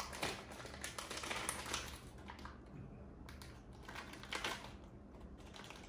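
Close-up sounds of handling and eating Yupi gummy candy: a run of small dry clicks and crackles, heaviest in the first two seconds and again a little past four seconds.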